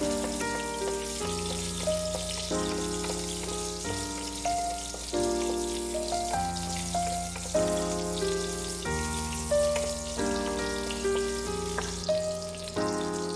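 Background music, a chord about every second and a half, over the steady sizzle of a breaded beef patty shallow-frying in oil.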